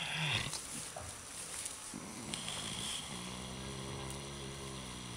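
Sleeping pigs snoring: breathy, rasping breaths, then from about three seconds in one long snore held on a steady low pitch.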